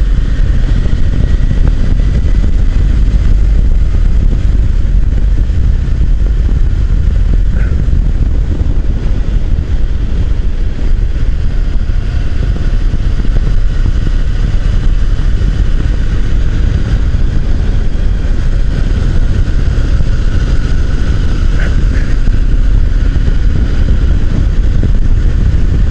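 Motorcycle riding at a steady cruising speed: the engine runs evenly under a heavy, constant rumble of road and wind noise.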